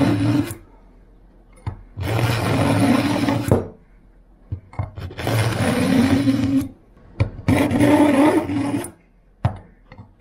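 Kitchen knife blade drawn through the coarse V-notch of a Lansky pocket sharpener: about three full rasping grinding pulls, each about a second and a half long with short pauses between, plus the end of another right at the start. This is the coarse grind that sets the edge angle and raises a burr on the blade.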